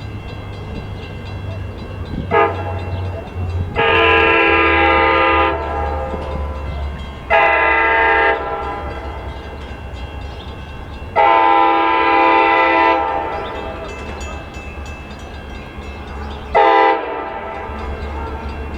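Metra MP36 diesel locomotive sounding its horn five times: a brief toot, a long blast, a shorter one, another long blast, and a final brief toot. A steady low diesel engine rumble runs under the horn.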